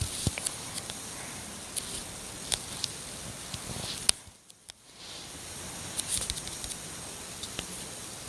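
Steady hiss with scattered small clicks and crackles. About four seconds in, a sharp click is followed by a brief drop to near quiet, then the hiss returns.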